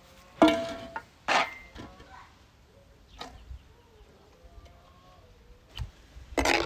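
Metal spoon clinking against aluminium mixing bowls, two sharp ringing clinks in the first second and a half and a lighter click a little later. Near the end a short burst of noise as the spoon works through the wet minced-meat filling.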